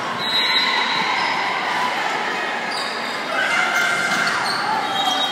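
Indoor volleyball rally in a large, echoing gym: a volleyball being hit during play under the steady chatter and calls of players and spectators.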